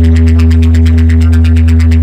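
Electronic dance music for a sound-system bass check: a loud, held deep bass tone under a fast repeating pulse of about nine beats a second.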